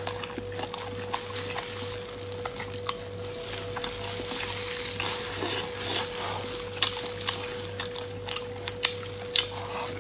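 Close-miked eating sounds: a person biting, tearing and chewing a sticky glazed chunk of braised meat held in plastic-gloved hands. Scattered short wet clicks and smacks, more of them in the second half, over a steady faint hum.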